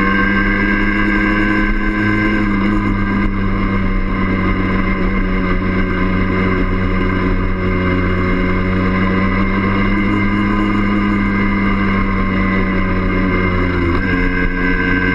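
Yamaha DT50M's 50 cc single-cylinder two-stroke engine running at steady revs under way, heard from on the bike. About a second before the end the engine note dips briefly, then picks up again.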